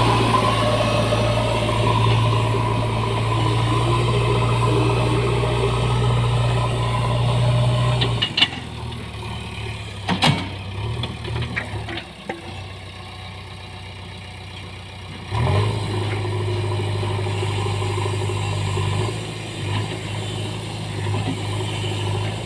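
JCB earthmover's diesel engine running steadily. About a third of the way in it drops much quieter for several seconds, with a few sharp knocks, then comes back at full level.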